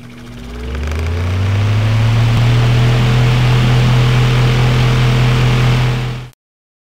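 Intro sound effect over the title card: a low hum that rises in pitch and swells over about two seconds into a loud, steady rushing drone, then cuts off abruptly near the end.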